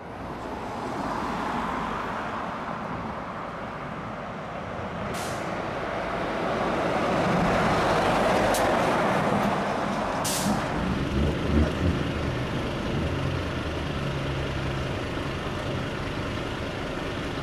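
Scania P280 fire engine driving past, its diesel engine and tyre noise swelling to a peak about eight seconds in, with two short air-brake hisses about five and ten seconds in. A low, steady engine running follows.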